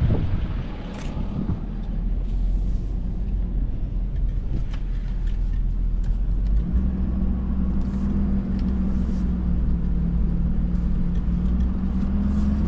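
Low, steady rumble of a running engine. A steady hum comes in about seven seconds in.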